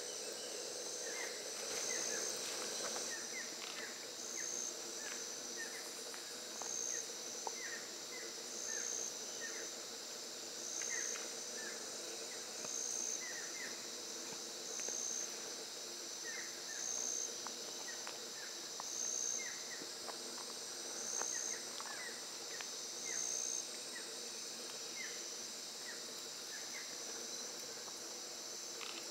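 Amazonian rainforest insect chorus: a steady high buzz, with a louder pulsing call repeating about every two seconds that stops a few seconds before the end. Many short chirps are scattered through it.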